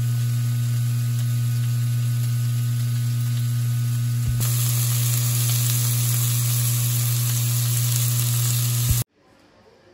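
Food sizzling in a frying pan over a steady low electrical hum. The sizzle turns brighter and louder about four seconds in, and the whole sound cuts off abruptly near the end.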